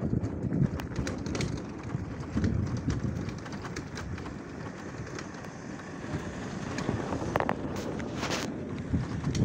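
Wind blowing across a phone's microphone, a steady low rumble, with scattered light clicks.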